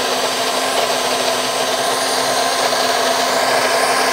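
Electric mixer grinder (mixie) running steadily at full speed, its blades grinding a thick chutney in the jar, with a steady motor whine.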